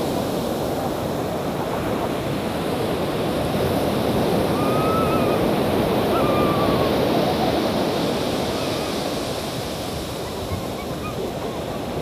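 Ocean surf breaking and washing up a sandy beach: a steady rushing that swells a little midway.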